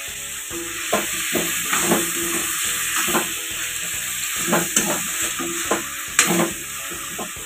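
Chicken pieces and onions sizzling in hot oil in a metal kadai as a wet spice paste is stirred through them with a steel spoon. The spoon scrapes and knocks against the pan irregularly, about once or twice a second, over a steady frying hiss.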